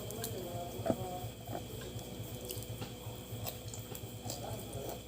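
Close-up eating sounds: chewing and biting into crab, with a few short clicks of shell or utensils, the sharpest about a second in, over a steady low hum.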